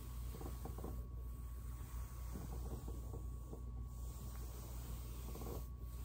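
Ridged foam roller rolling and rubbing on carpet under a person's body, giving soft scattered scratchy rustles over a steady low hum.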